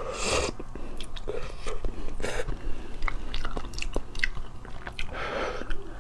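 Close-miked eating: spoonfuls of thick lotus root starch paste slurped from a metal spoon, and the nuts in it chewed, with many small wet mouth clicks.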